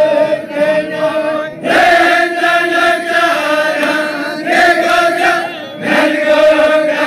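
Balochi chogan: a group of men chanting in unison in long held notes, with short breaks between phrases.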